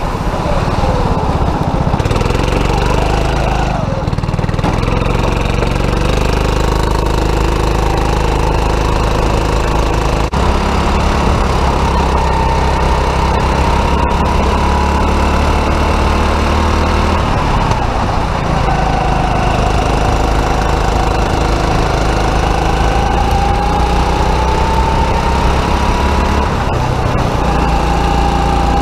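270cc four-stroke kart engine running hard, heard from the driver's seat, its pitch climbing steadily as it accelerates and dropping sharply when the throttle is lifted for a corner, about 17 s in and again near the end.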